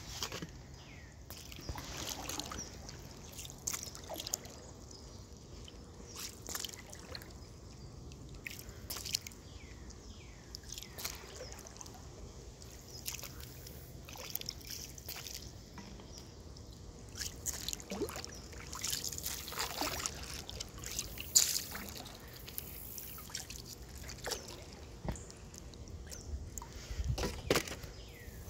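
Kayak paddle strokes: the blade dipping into and lifting out of the river, giving irregular splashes and trickling drips.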